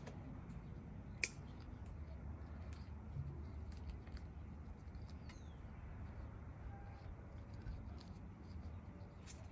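Hand pruning shears snipping succulent stems: one sharp snip about a second in, then fainter clicks and rustles as cuttings are taken, over a low background hum.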